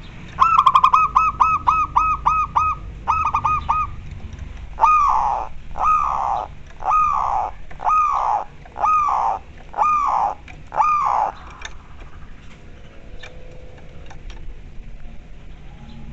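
Zebra dove (perkutut) cooing: a quick run of short notes, then seven longer down-curving coos about a second apart.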